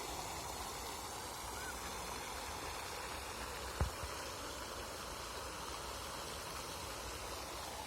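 Steady open-air hiss with faint honking calls of waterfowl, and a single knock about four seconds in.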